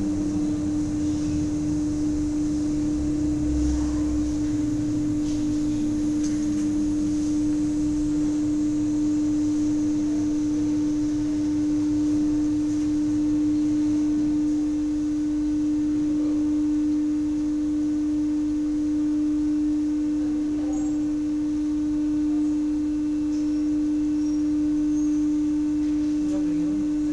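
Steady, even hum of an aerial cableway's drive machinery in the station while the red-and-white Wengen cabin slows and pulls in to dock.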